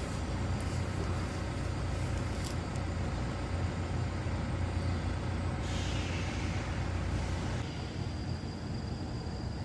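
Top-lit wood stove burning hard in gas (secondary) combustion: a low steady roar of the fire and draft with a few faint crackles. About six seconds in comes a two-second hiss that falls in pitch.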